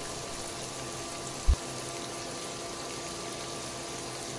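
Shrimp sizzling gently in butter in a stainless-steel frying pan: a steady, even frying hiss with a faint steady hum under it. A brief low thump comes about a second and a half in.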